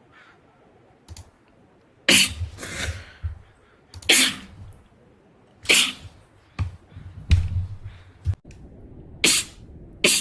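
Rapid-fire sneezing: a run of sharp sneezes in quick succession starting about two seconds in, roughly one every second or two, with short breaths between.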